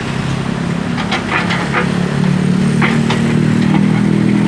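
Sany hydraulic excavator's diesel engine running, growing louder about two seconds in as it works under load while digging soil, with a few short sharp noises over the engine.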